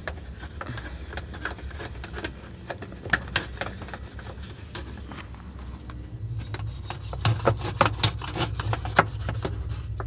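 A brush scrubbing and scraping thick, caked-on grime from the hub inside a top-loading washing machine's drum, giving irregular scratchy strokes and sharp clicks. The strokes get busier and louder from about six seconds in.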